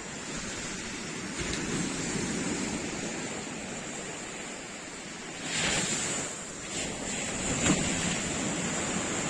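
Sea surf washing steadily onto the beach, with wind on the microphone. A louder wave rush comes about five and a half seconds in, and a single sharp click comes near the end.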